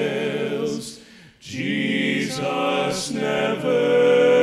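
Male vocal quartet singing a cappella in close harmony. The voices hold a chord, break off briefly about a second in, then come back in and end on a loud held chord.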